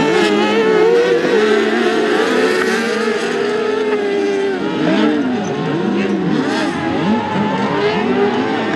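Several autocross buggies racing together on a dirt track, their high-revving engines overlapping and repeatedly rising and falling in pitch as the drivers accelerate and lift off.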